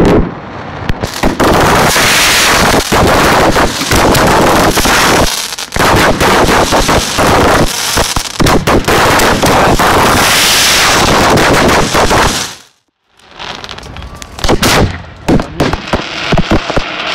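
Fireworks display at close range: aerial shells bursting in rapid succession with dense crackling, very loud. The noise drops away suddenly for about a second near the end, then bangs and crackling resume.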